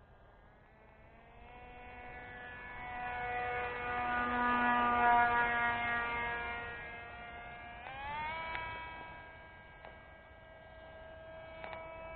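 Flat-profile Sukhoi RC model plane's motor and propeller whining as it flies. The pitch rises as the throttle goes up about a second in, the whine grows louder toward the middle and fades again as the plane passes, and around eight seconds the pitch jumps up again with another burst of throttle.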